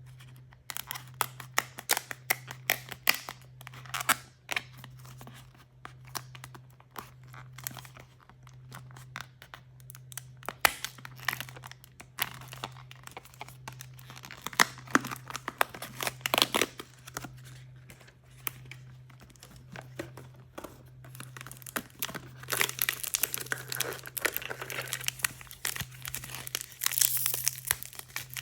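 Plastic and foil wrapping of blind-bag surprise toys being crinkled and torn open by hand, a run of irregular crackles and rips that thickens into steady crinkling near the end.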